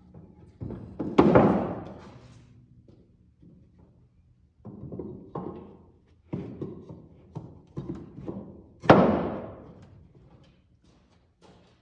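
Knocks on the lumber of a wooden floor truss: two heavy blows, about a second in and near the end, each ringing on in the echoing metal arched building, with a quick run of lighter knocks between them.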